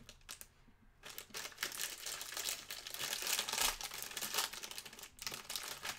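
A crinkly plastic snack bag of cheese puffs being pulled and torn open by hand close to the microphone: dense crinkling and crackling that starts about a second in, is loudest around the middle, and eases briefly near the end.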